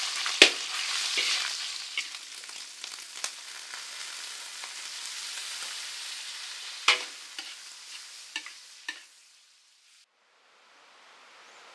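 Minced meat stir-frying in a steel wok, sizzling, with sharp clinks and scrapes of a metal spatula against the pan. The sizzle fades out about nine seconds in, then, after a moment of silence, a faint hiss slowly rises.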